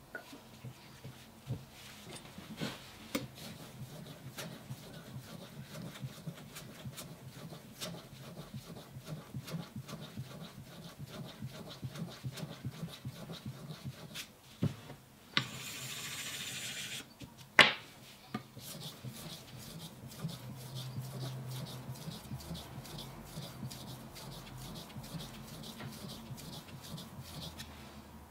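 Steel blade of a Japanese kitchen knife rubbed back and forth on a wet whetstone: a long run of rasping strokes, faster and more even in the last third. About halfway through the strokes pause for a short steady hiss, followed by a single sharp knock.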